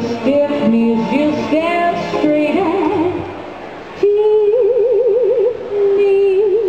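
A woman singing a retro pop number into a microphone over backing music. About four seconds in she moves onto a long held note with a wide vibrato.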